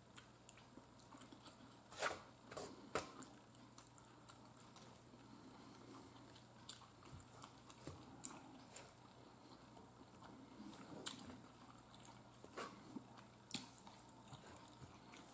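Quiet close-up eating sounds: soft chewing of pork steak with scattered faint clicks and taps, over a faint steady low hum.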